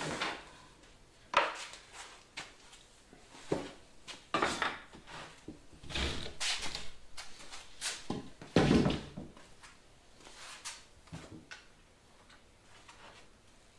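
Irregular knocks, clunks and light clatter of things being handled, moved and set down on a workshop table, with one heavier clunk a little past halfway.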